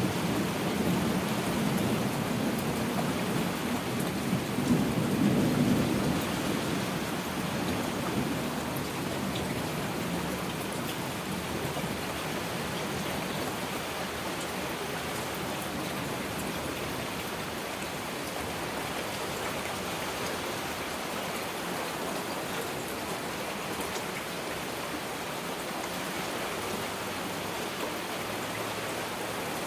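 Heavy rain falling steadily, with a low rumble of thunder in the first several seconds that fades away.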